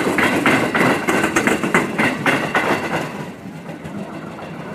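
Electric commuter train passing close by, its wheels clacking over the rail joints about four times a second, fading away after about three seconds as the train clears.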